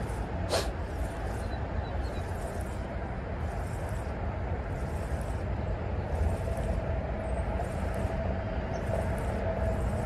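Steady highway traffic noise, a low rumble, with a single sharp click about half a second in.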